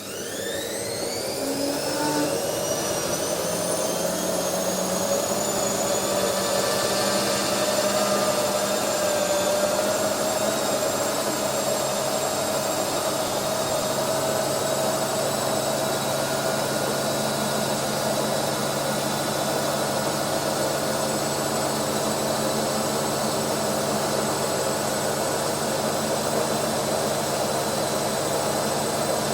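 Washing machine motor and drum speeding up: a whine rises in pitch over the first few seconds, then holds a steady high-speed whine over a loud rushing noise, typical of a spin cycle.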